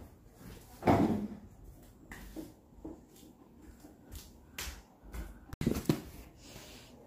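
A few dull knocks and scrapes from a limp figure being dragged over a tiled floor and set on a wooden chair. The loudest knock comes about a second in, and a sharp click with two more knocks comes near six seconds.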